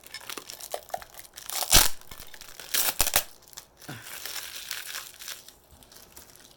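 Packing wrap crinkling and tape tearing as a tightly taped gift is unwrapped by hand, in irregular bursts; the loudest come a couple of seconds in and again about a second later.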